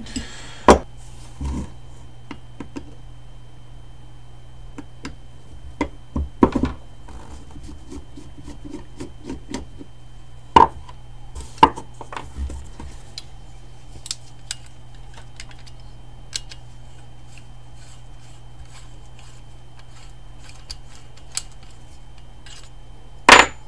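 Scattered clicks and knocks of metal motorcycle brake parts, a caliper and lever assembly, being handled, turned over and set down on a workbench, over a steady low hum.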